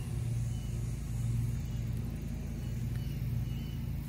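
Steady low hum that swells and fades roughly once a second.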